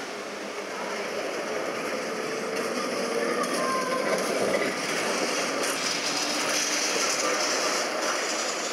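Vintage Lisbon street tram, rebuilt with new trucks and electrical equipment, running past on its rails. Its wheels give a steady rolling rattle on the track, getting a little louder and hissier about halfway through.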